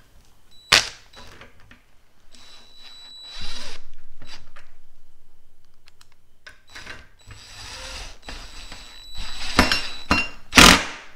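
Cordless drill/driver running for about two and a half seconds and fading off, then a second, fainter run. A sharp click comes about a second in, and loud knocks near the end.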